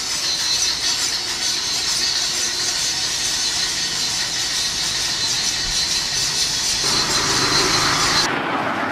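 Hand file rasping back and forth across a steel bolo blade. Near the end the rasping cuts off suddenly, leaving a lower, duller noise.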